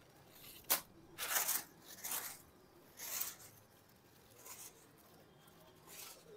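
Kite string rasping through the hand in short pulls, about five over a few seconds, after a small sharp click, as a fighter kite is tugged up into the air. The rasps are faint.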